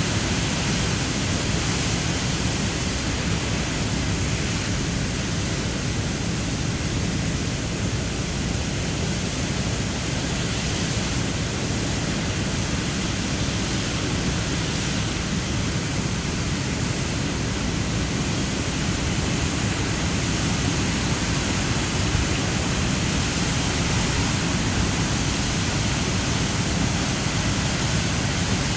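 Floodwater pouring through the open gates of a river dam and churning in the river below: a loud, steady, unbroken rush of water.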